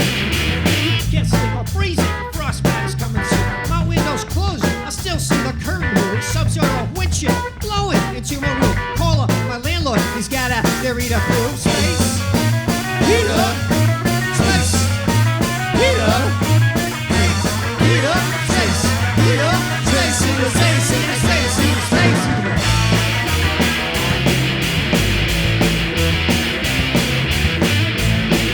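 Rock band music: a stepping bass line and a steady drum beat, with a busy lead melody over the top.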